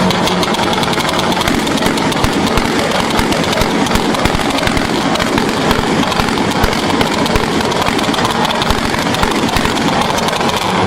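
Car engine held on a two-step launch limiter, the exhaust popping and banging in a rapid, uneven string of sharp cracks.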